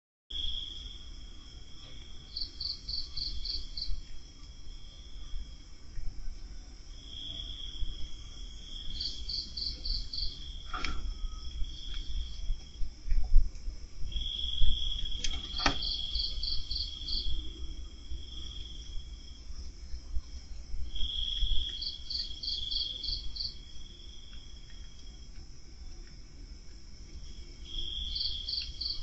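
A night insect calling in a repeating phrase about every six seconds: a steady high trill lasting about two seconds with a quick run of five or six higher pulses above it. A low rumble runs underneath, and a few sharp clicks come near the middle.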